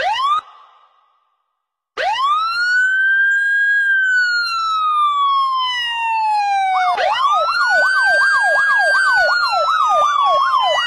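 A siren sound. After a short rising whoop at the start and a brief pause, it gives one long wail that rises and then slowly falls. About two-thirds of the way in it switches to a fast up-and-down yelp, about three cycles a second.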